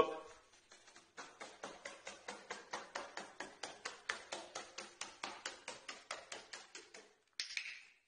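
White-bellied caique hopping on a hard tabletop, its feet tapping in a fast even rhythm of about five taps a second. A short noisy burst comes near the end.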